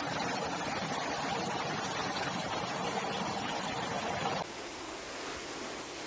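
Rushing floodwater: a steady rush of water. About four seconds in it cuts abruptly to a quieter, duller rush.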